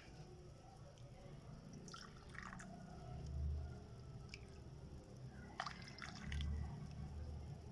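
Liquid dripping: a few scattered, separate drips, with two low dull bumps, one in the middle and one near the end, that are louder than the drips.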